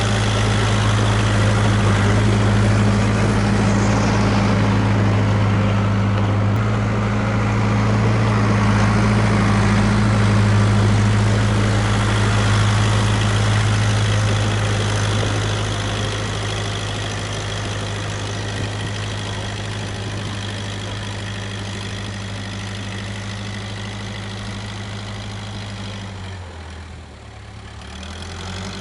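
Case 580K backhoe's four-cylinder diesel engine running steadily at working revs while pushing snow. It grows somewhat quieter after about fifteen seconds. Near the end the engine note drops sharply for a second or two, then picks back up.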